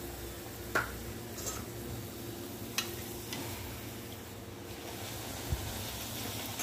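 Puri deep-frying in hot oil in a steel kadai, a steady soft sizzle, with two sharp clicks about one and three seconds in.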